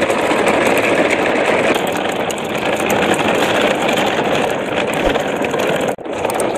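Plastic toy dump trucks' hard wheels rolling over gritty, muddy concrete in a convoy, a steady grinding, crackling rumble that cuts out briefly about six seconds in.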